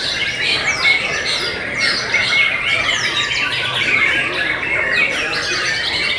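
Several caged white-rumped shamas (murai batu) singing at once, a dense, unbroken overlap of rapid whistles and trills with many quick downward-sliding notes.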